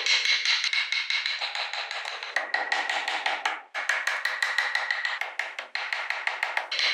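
Hand chisel paring into a wooden block, a quick run of dry clicks and scraping as the shavings curl off. The cutting pauses briefly about halfway through.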